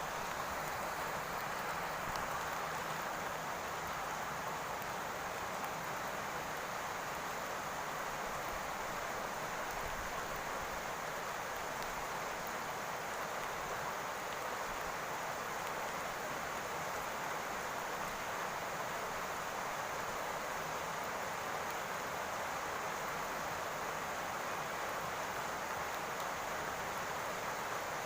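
Steady rain falling on a roof, an even hiss that holds at the same level throughout.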